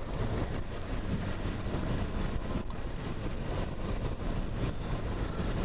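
Steady rumble and hiss of a car driving on a rain-soaked highway, heard from inside the cabin: tyres on wet pavement, with wind and rain against the vehicle.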